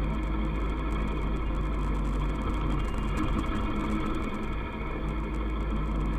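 Kawasaki ER-6f motorcycle's parallel-twin engine running at a steady cruising speed, its pitch holding level, over a low rumble.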